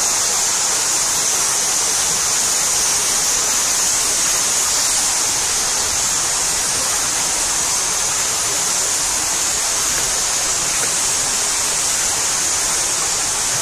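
Stream water rushing steadily, an even hiss of water with no breaks.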